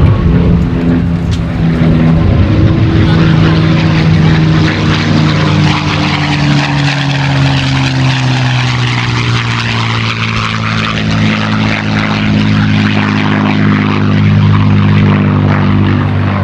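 P-51D Mustang's V-12 Merlin engine and propeller running at display power during a fly-by. The engine note drops gently in pitch as the fighter passes and then heads away.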